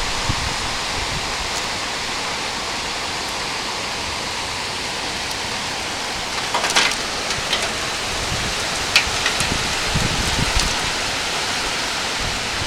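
Rain falling steadily, an even hiss with a few sharper drop hits in the second half.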